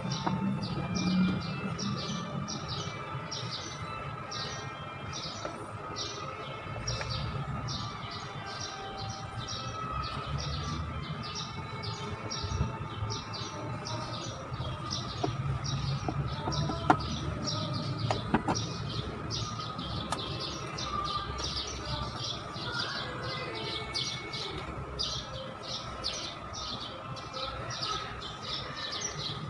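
A small bird chirping in a rapid, steady series, about three to four high chirps a second.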